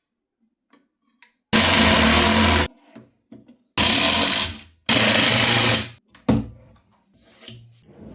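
Power drill running in three short bursts of about a second each, the second and third back to back, followed by a sharp click and a few fainter knocks of handling.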